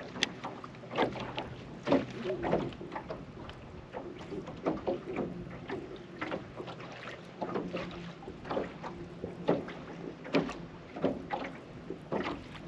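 Irregular light clicks and knocks of gear being handled in a fishing boat, over a faint steady low hum.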